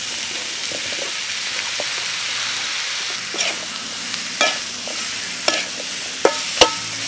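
Prawns and bell peppers frying in a metal wok as they are stir-fried: a steady sizzling hiss, with a spatula knocking against the pan several times in the second half, loudest near the end.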